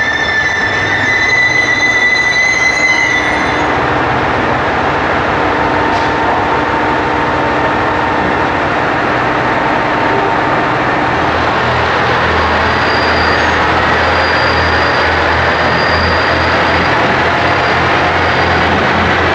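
KiHa 189 diesel express train moving through a station, its wheels squealing with high tones for the first few seconds. The steady rolling noise of the train follows, and a deep engine hum comes in about eleven seconds in.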